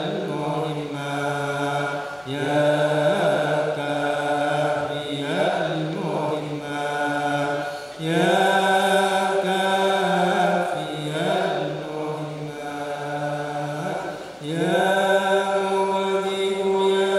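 Islamic devotional chanting by voices, in long drawn-out phrases held on a few steady pitches with slow glides between them, a new phrase starting about every six seconds.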